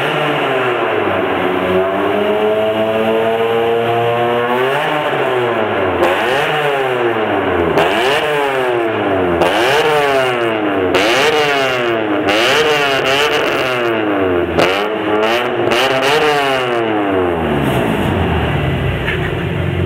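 BMW M3 engine being free-revved while parked: one slow climb in revs, then a string of quick revs rising and falling about once a second, with pops from the exhaust as the revs drop, settling back to idle near the end.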